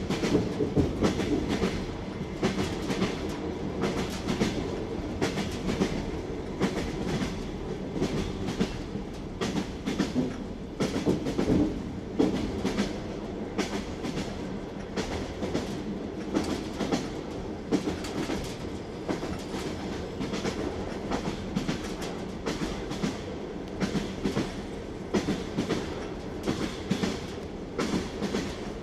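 Train wheels clattering over rail joints: a steady rolling rumble with repeated sharp clickety-clack knocks, several a second, throughout.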